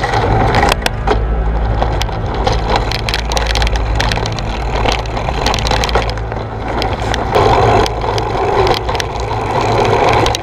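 Rattling and knocking of a mountain bike and its mounted GoPro jolting over rough ground and paving. Many sharp clicks ride over a steady low rumble.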